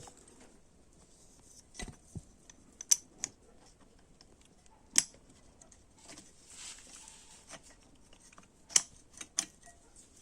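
Scattered sharp metallic clicks and taps, a handful spread over several seconds, from a piston pin being pushed through the piston and connecting rod during engine assembly.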